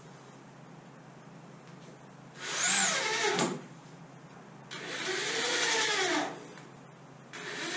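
Corded electric drill driving screws into the wooden rib frame, run in three short trigger bursts a second or so apart; the motor's pitch rises and falls in each burst.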